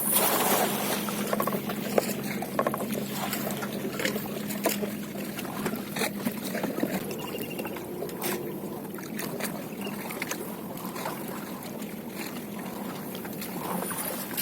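Boat on the river with a steady low engine hum, water noise, and scattered knocks and clicks.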